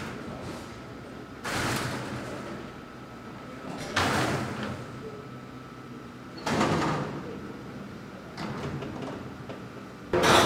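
Freight elevator's sliding mesh gate and door being pulled shut: about four loud metal clanks and bangs, a couple of seconds apart.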